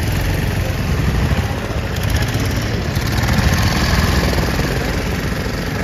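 Passenger motorboat's engine running steadily, a low pulsing drone with a hiss above it.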